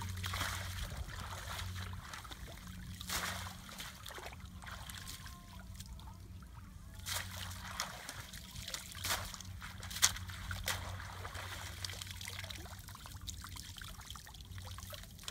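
Shallow muddy paddy water trickling and splashing as a person wades and lifts a net and bamboo trap panel through it, with a few sharper splashes. A steady low hum runs underneath.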